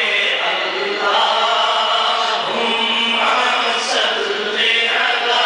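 A man chanting a naat, an Urdu devotional poem, unaccompanied into a microphone, in long held notes whose pitch bends up and down.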